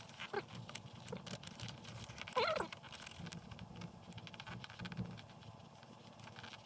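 A paper template rustles and crinkles as it is pressed against a car's roof headliner, with light taps and scratches of a pencil marking it. A brief rising-and-falling vocal sound comes about two and a half seconds in.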